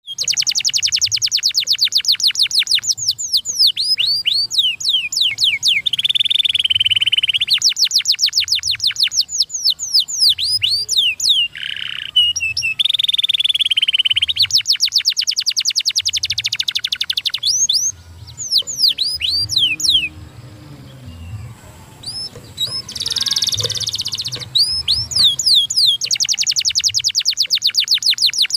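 Domestic canary singing: fast trills of rapidly repeated downward-sweeping notes, broken by buzzy held rolls, with a brief quieter pause about two-thirds of the way through before the trilling resumes.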